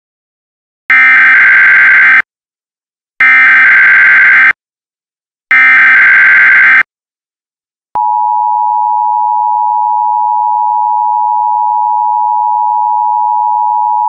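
Emergency Alert System tones. Three identical bursts of SAME header data tones, each just over a second long with about a second between them, mark the start of a new alert. About eight seconds in, the steady two-tone EAS attention signal begins.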